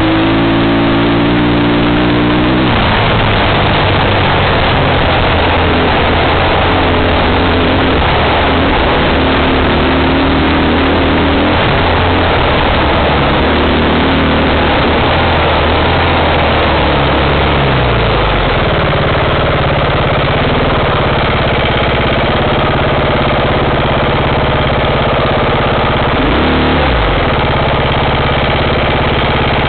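Engine of an off-road vehicle running under way over a dirt track, with a heavy wash of wind and rattle noise. The engine note drops about halfway through, then dips and climbs again briefly near the end.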